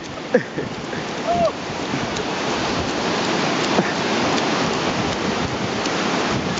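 Ocean surf breaking and washing up the beach, mixed with wind buffeting the microphone; the steady rush grows louder after the first second or so.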